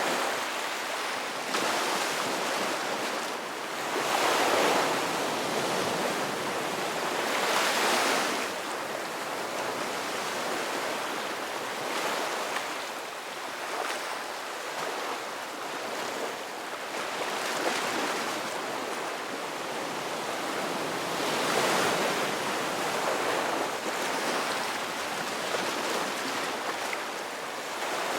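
Ocean surf: waves breaking and washing in, the rush of water swelling and easing every few seconds.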